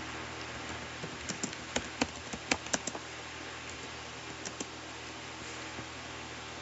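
Computer keyboard typing: a quick run of about a dozen keystrokes, then two more a moment later, over a steady background hiss.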